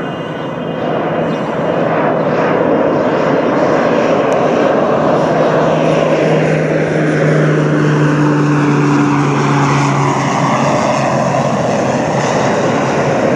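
Air Tractor AT-802AF Fire Boss's single Pratt & Whitney PT6A turboprop and propeller as the plane flies low past: a loud, steady drone with a low propeller hum, and a higher whine whose pitch slowly falls as it goes by.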